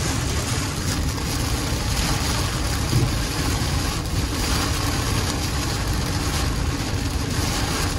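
Heavy rain beating on a moving car and tyres running through water on the flooded highway, heard from inside the cabin as a steady, even rush.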